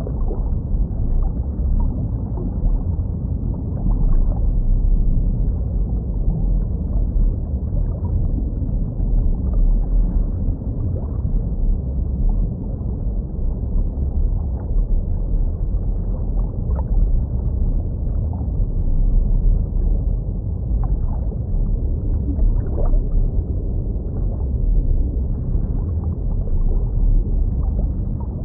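Muffled underwater ambience of a fish tank: a steady low rumble with faint bubbling now and then.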